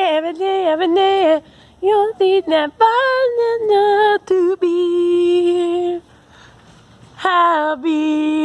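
A single high voice singing a tune unaccompanied, close to the microphone, in short phrases with one long held note about halfway through, then a pause of about a second before the singing starts again.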